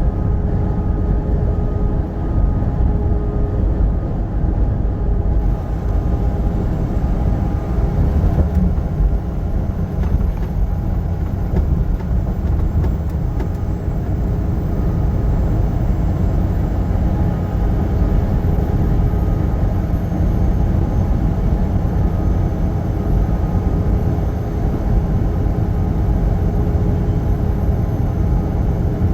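Semi-truck driving on the highway: a steady, loud low rumble of engine and road noise with a few faint constant hums.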